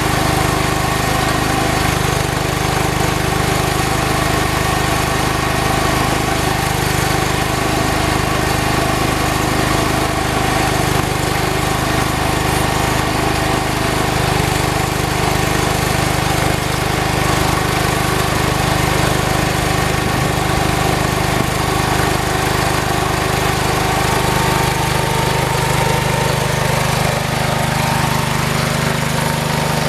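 Engine running steadily at a constant speed, with a slight change in its note near the end.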